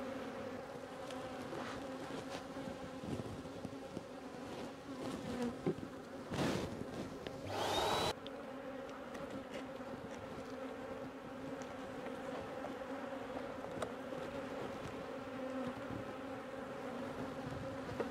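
A disturbed honey bee colony buzzing around its opened nest: a steady, even hum. About six seconds in, a louder rush of noise lasts roughly two seconds and cuts off sharply.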